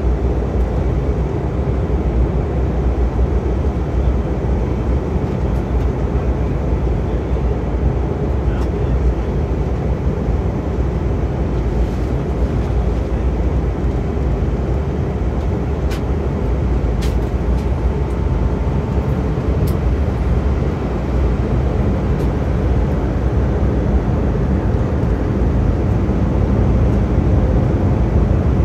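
Steady engine and airflow noise inside the cabin of an Airbus A319 airliner in flight, heaviest in the low end, with a few faint clicks about halfway through.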